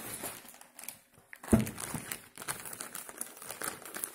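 Plastic mailing-bag packaging crinkling and rustling as it is handled, with one thump about one and a half seconds in.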